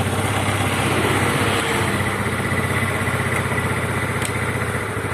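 Yamaha Mio Sporty scooter's single-cylinder four-stroke engine idling steadily. It has a hiccuping, coughing idle fault that will not hold a stable idle, which the owner traces to the carburettor's needle and vacuum slide diaphragm.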